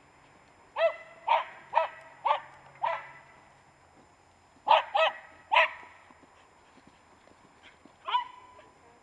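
Small terrier barking in sharp, quick barks: five in a row, then three more after a short pause, and a last bark near the end that trails off into a brief held whine.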